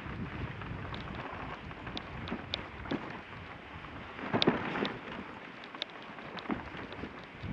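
Dog sled moving along a snow trail: a steady hiss of runners and wind, with scattered light clicks and a louder knock about four and a half seconds in.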